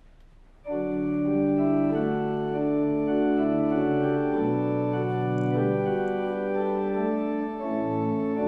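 Church organ coming in about a second in with sustained chords that change every second or so: the introduction to the Gospel Acclamation.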